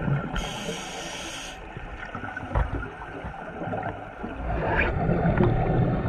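Scuba regulator breathing underwater: a hiss of inhaling through the demand valve lasting about a second, then from about four seconds in a low bubbling rumble of exhaled air.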